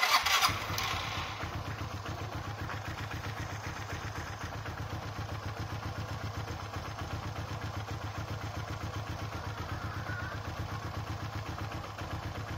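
Small motorcycle engine starting, with a brief louder burst, then idling steadily with an even pulsing beat while a carburetor is being tested.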